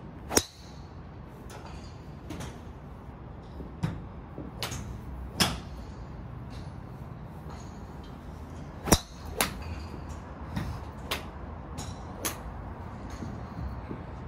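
A TaylorMade R9 driver striking golf balls: a sharp crack of club on ball about half a second in and another about nine seconds in. Fainter ball strikes from other bays fall in between, over a steady low background hum.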